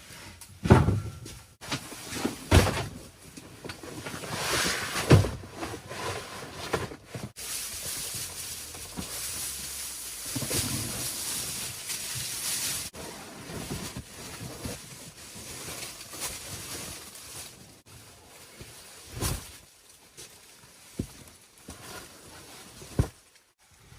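Scattered knocks and thumps, with several seconds of rustling hiss in the middle, as things are handled and set up on a freshly assembled iron bed.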